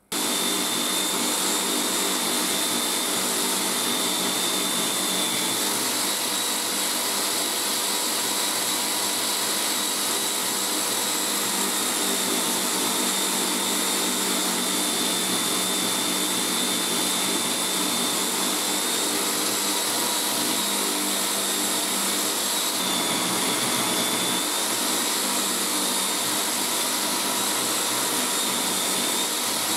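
Electric motor spinning a cloth buffing wheel on a mandrel, running steadily with a high whine, while a red micarta knife handle is buffed against it.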